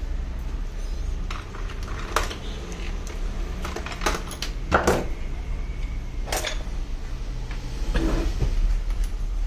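Small objects handled on a hard surface: a few separate clicks and knocks over a steady low rumble.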